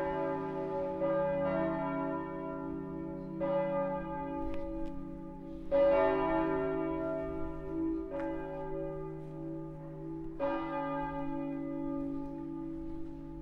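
Full peal of church bells calling to Sunday service: several swinging bells strike in overlapping, uneven succession over a continuous hum of ringing tones. The loudest strike comes about six seconds in.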